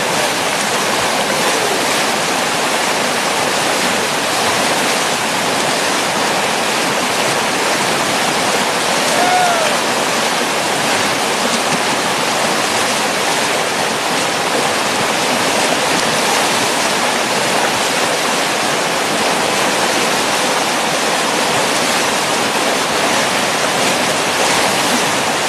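Whitewater of a river rapid rushing steadily and loudly.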